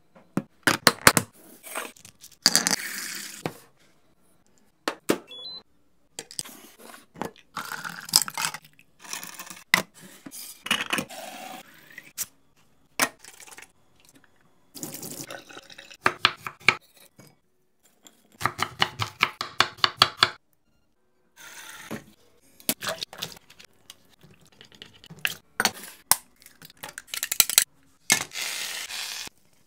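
Kitchen food-prep sounds: quick clicks and taps of dishes, utensils and containers, broken by several short spells of running or pouring water, with brief pauses in between.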